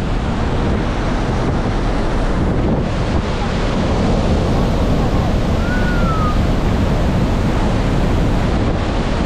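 Strong, steady wind buffeting the microphone over the rush of open sea, heard from a moving ferry.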